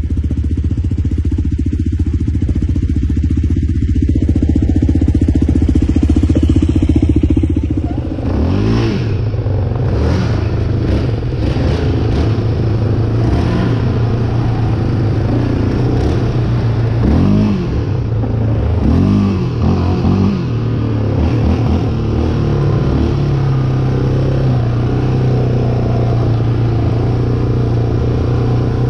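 Off-road vehicle engine (quad or side-by-side) running at a steady pitch, then from about eight seconds in revving up and down while riding, with rattling and knocking from the rough ground.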